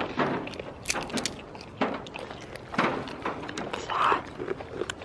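Goats crunching and chewing food taken from a hand, close up: irregular crisp crunches and rustles.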